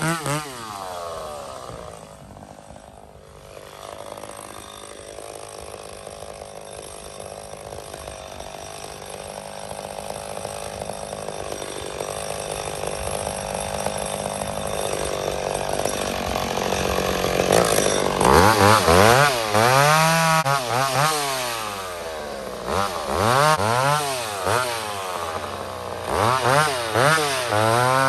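McCulloch 850 two-stroke chainsaw dropping off full throttle right at the start and running low for a while. From about two-thirds of the way in it is revved up and let back down repeatedly.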